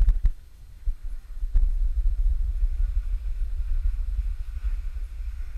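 Wind buffeting a GoPro's microphone while moving downhill on a ski slope: a steady, gusty low rumble. A few sharp knocks come in the first couple of seconds, and a faint hiss of sliding on snow comes in from about halfway.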